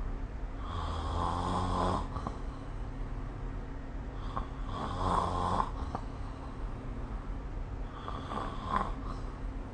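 A sleeping person snoring: three snores about three and a half seconds apart, each lasting a second or so, over a steady low hum.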